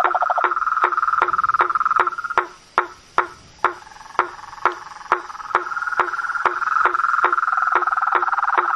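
Frogs calling: a steady knocking call about twice a second over a rapid pulsed trill. The trill breaks off about two and a half seconds in and comes back about five and a half seconds in.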